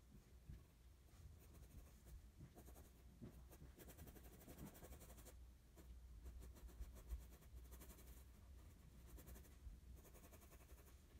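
Faint scratching of a wooden graphite pencil on drawing paper as a sketch is drawn in short strokes, coming in several bursts with brief pauses between them.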